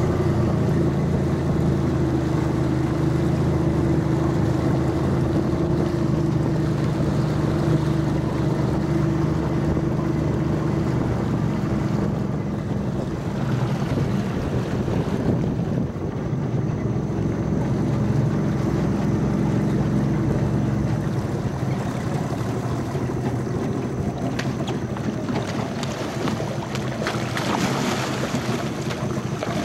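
Boat's outboard motor running steadily, with wind noise on the microphone and water rushing past. The engine's steady note grows less distinct after about twelve seconds, and a few short sharp sounds come near the end.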